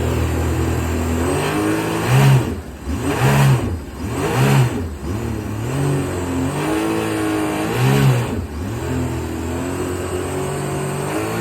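A freshly rebuilt Sea-Doo 1503 three-cylinder four-stroke engine idling, then revved in a run of quick throttle blips. The pitch climbs and drops back about four times, with one longer, gentler rise in between.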